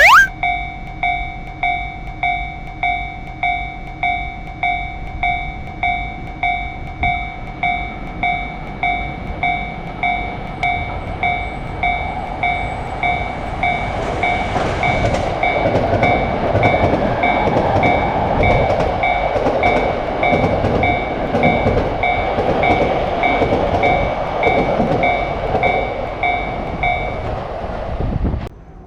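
Railroad crossing warning bell ringing in a steady repeating ding, about one and a half strikes a second. About halfway through, a passing train's rumble and rattle builds over the bell and carries on. Near the end the bell stops and the train sound cuts off; a short rising whistle-like sweep comes at the very start.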